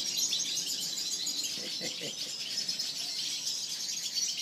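Many small aviary finches chirping and twittering together in a steady, dense chorus of short, high calls.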